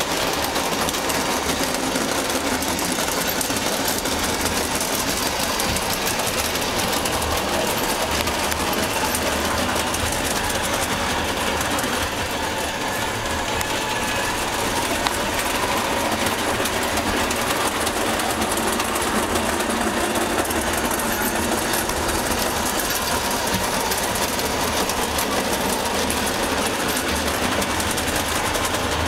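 O gauge model train running steadily on the layout's track: a continuous mechanical running noise of motor and wheels on rail.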